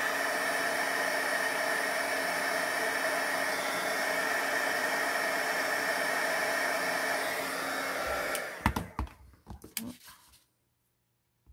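Embossing heat gun blowing steadily, melting embossing powder, until it is switched off about eight seconds in. A few short knocks follow.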